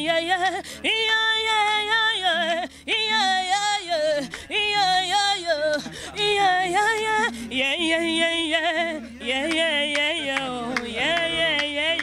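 A woman singing a Lingala gospel song solo and unaccompanied, in long held notes with a wide vibrato, phrase after phrase with short breaths between.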